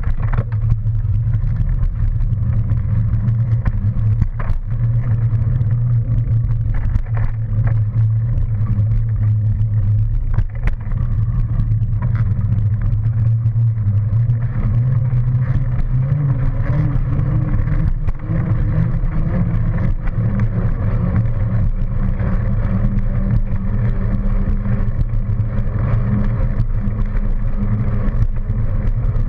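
Steady low rumble of wind and tyre noise on a bicycle-mounted camera while riding, with passing road traffic alongside.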